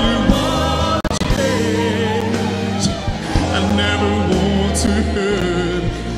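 Male lead singer singing a solemn gospel worship song into a microphone over band accompaniment, with a men's choir singing behind him; his held notes waver with vibrato.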